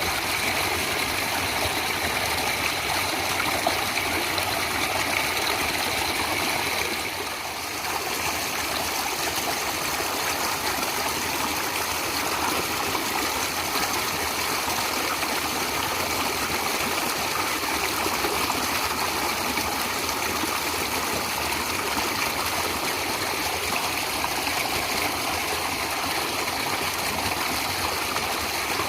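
Natural stream water flowing steadily, an even rushing and trickling that dips briefly about seven seconds in.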